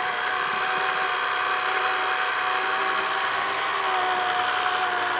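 Electric pasta machine's motor running with a steady hum as a folded sheet of dough passes through its steel rollers on the wide setting, working the dough smooth.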